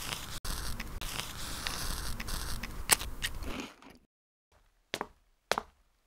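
Marker scratching across cardboard as the title is drawn: a dense scraping noise full of sharp clicks. It stops suddenly after about three and a half seconds, followed by a few separate clicks.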